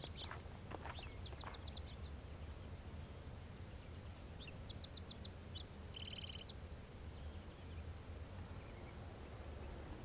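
A few footsteps on gravel in the first second. A small bird then calls several times in quick runs of short high notes, one of them buzzier, over a faint low rumble.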